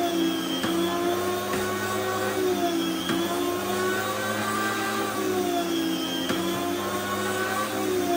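Small electric deli slicer's motor running with a steady hum, its pitch sagging briefly about every three seconds as the spinning blade cuts through a slab of roast beef.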